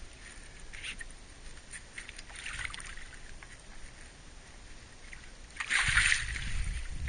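A hooked dorado splashing hard at the surface beside the boat about six seconds in, after several seconds of faint water lapping and light ticks.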